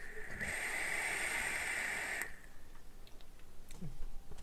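Electronic cigarette being drawn on: a steady hiss of air pulled through the atomizer for about two seconds, cutting off suddenly.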